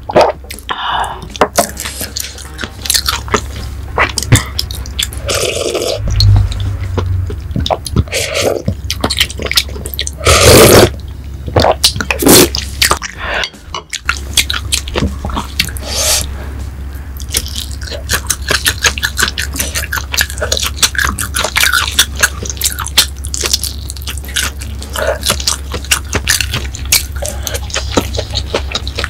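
Close-miked eating sounds: sipping and swallowing rice wine from a metal bowl in the first half, then after a break about halfway through, wet chewing with many small clicks and lip smacks.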